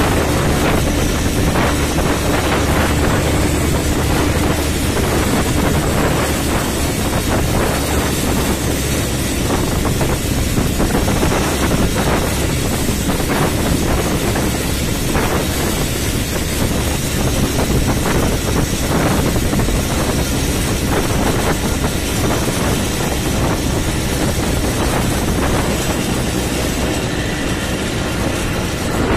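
ATV engine running steadily while riding along a road, with wind rushing and buffeting over the microphone. The engine is a constant low hum under the rush of wind and road noise.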